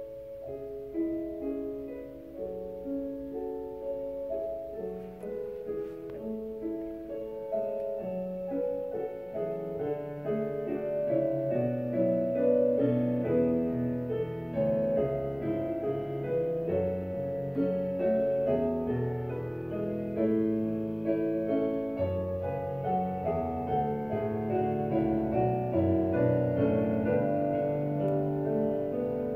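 Background piano music of steady, flowing notes, growing fuller and louder as lower notes join about ten seconds in.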